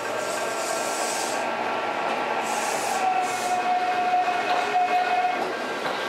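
Kintetsu limited express train rolling slowly past at low speed, its running gear giving a whine that rises over the first few seconds, then holds a steady pitch before fading, with short bursts of air hiss.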